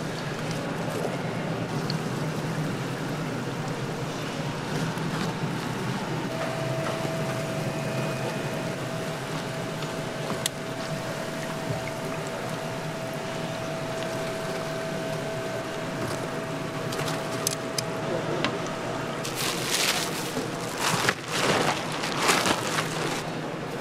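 Hot oil sizzling steadily as battered Korean fish cakes deep-fry in a stainless steel fryer tray, with the light clink of metal tongs. Near the end, louder rustling and thuds as a large lump of fish paste is tipped out onto a plastic cutting board.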